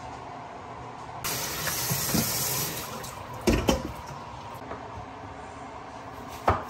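Kitchen faucet running into a stainless steel bowl of peeled pumpkin pieces as they are rinsed, for about two seconds starting about a second in. Then a loud double knock as the bowl is handled, and another knock near the end.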